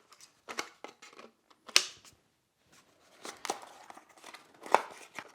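Plastic parts and packaging being handled: a series of short sharp clicks and brief rustles, the loudest a little under two seconds in and near the end.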